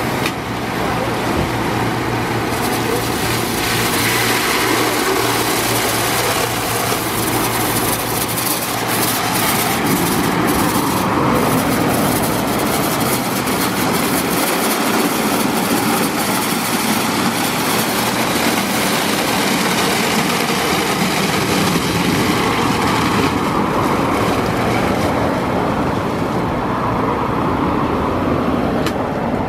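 Ceccato Aries WD rollover car wash running its brush pass: rotating side and top brushes scrubbing a car while water sprays, a steady loud rush of water and slapping brush bristles over the machine's motor hum.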